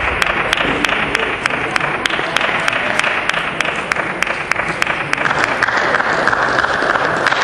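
Table tennis balls clicking off bats and tables, with play going on at many tables at once: an irregular patter of sharp ticks, about three or four a second, over the echoing hubbub of a large hall.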